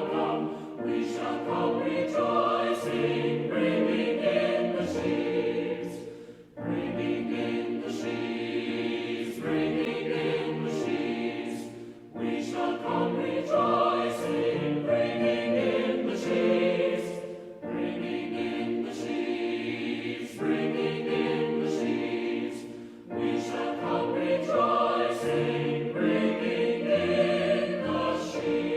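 Many voices singing a hymn together in sung lines of about five seconds each, with brief breaths between the lines.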